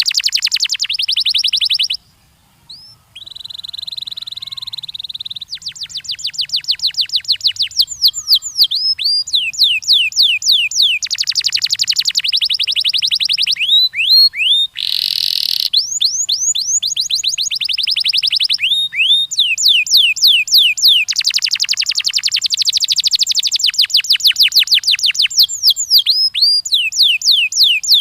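Domestic canary singing: long rolling trills of rapid, falling notes, with a short pause a couple of seconds in and a brief harsh note about halfway through.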